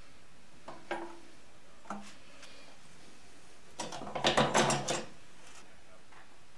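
Metal tools and parts clicking and clattering during work on a motorcycle's rear axle and chain adjusters: two single knocks in the first couple of seconds, then a quick rattling run of clicks lasting about a second, near the middle.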